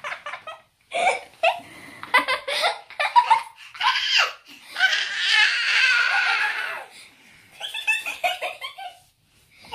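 A child laughing hard in quick repeated bursts, with one long, high-pitched stretch of laughter in the middle and another short run of bursts near the end.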